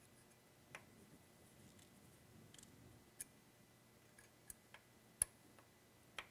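Faint, irregular metallic clicks of a T-handle hex key seating in and turning the set screws of a lathe toolholder, tightening them to clamp the tool bit; about half a dozen clicks, the sharpest a little over five seconds in.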